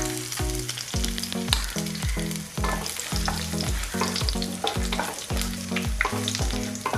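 Whole spices and curry leaves crackling and sizzling in hot coconut oil in a nonstick kadai, stirred with a wooden spatula. Background music with a steady low beat plays underneath.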